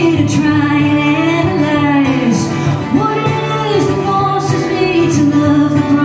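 Live band performing a song: a woman sings the lead melody over acoustic guitar and electric bass.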